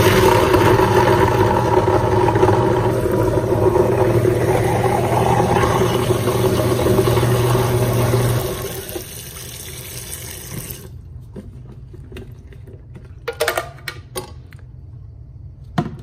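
Kitchen sink garbage disposal running and grinding a load of ice to scour food residue off the grinding chamber, with tap water pouring into the drain: a steady motor hum under loud, noisy grinding. About eight seconds in the disposal shuts off, the running water carries on a couple of seconds more and stops, and a few light knocks follow.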